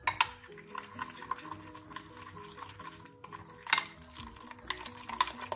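Metal spoon stirring and scraping thick curd and spice powders in a glass bowl, with small clinks against the glass and one sharper clink about three and a half seconds in. Soft background music with stepped notes underneath.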